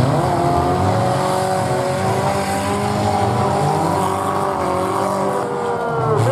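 Several four-cylinder demolition derby cars running at once, their engines revving with pitches rising and falling over one another.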